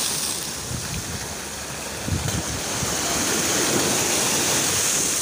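Sea surf breaking and washing over shoreline rocks, a steady rushing that swells about two seconds in, with some wind on the microphone.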